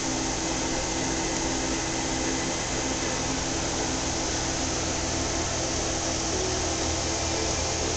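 Steady whirring hum of the cooling fans in rack-mounted network switches and servers, with a few faint steady tones running through it.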